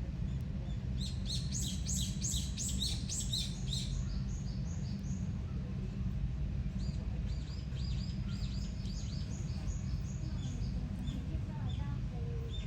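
Small birds chirping over a steady low outdoor rumble. A quick run of sharp high chirps comes about a second in, and a softer run follows from about six to ten seconds.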